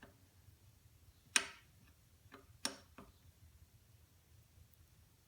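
A few sharp metallic clinks with a brief ring as a wrench and metal parts are handled on the drill press head. The loudest comes about a second and a half in, and another a little over a second later.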